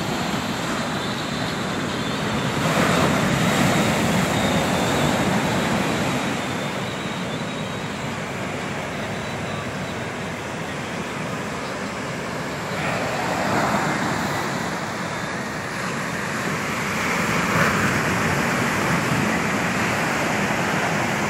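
Waves breaking on a sandy beach: a steady rush of surf noise that swells three times.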